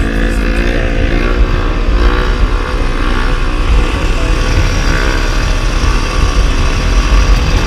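Motorcycle engine running while under way, with heavy wind rumble on the microphone.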